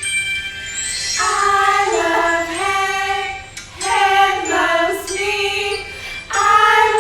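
A song with a sung melody over a jingling, bell-like backing; sung phrases come in about a second in, again near four seconds, and once more near the end.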